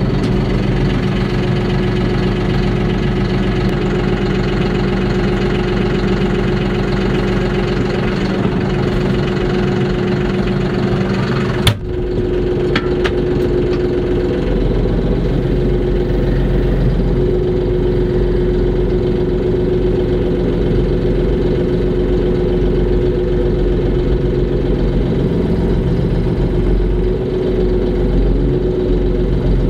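Cab tractor's diesel engine running steadily under load, heard from inside the cab. A single sharp knock comes a little before halfway through, after which the engine sound is duller.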